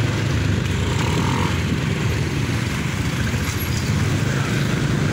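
Motorbike ride in street traffic: the bike's small engine running steadily under a constant rush of road noise.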